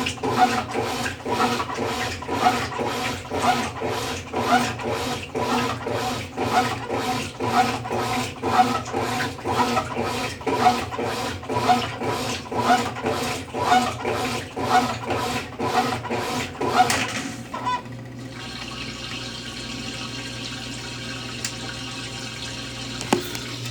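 Consul Facilite 10 kg top-loading washing machine in its wash stage, its agitator churning a load of blankets in water with a rhythmic swish of about two strokes a second over a steady motor hum. About 17 seconds in the agitation stops, leaving a steady hum and a faint watery hiss.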